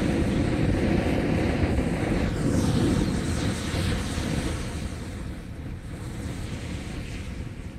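A punctured, fully charged 6S lithium-polymer battery venting and burning in thermal runaway: a loud, dense rushing hiss of escaping gas and flame that eases off after about four seconds.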